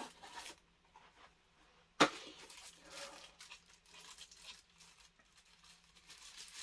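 Clear plastic packaging of laser safety goggles being opened by hand: one sharp snap about two seconds in, then soft plastic rustling and small clicks.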